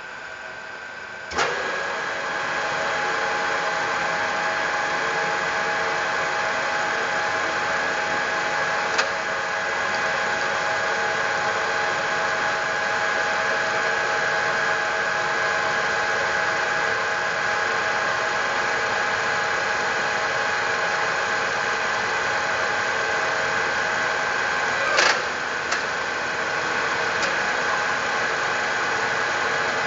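Milling machine running steadily with a motor whine of several held tones, stepping up in level at a sharp click about a second and a half in. Two more short clicks come later, one about nine seconds in and one near twenty-five seconds.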